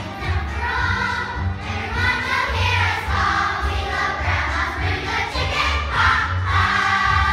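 A large group of children singing together over musical accompaniment with a steady pulsing bass.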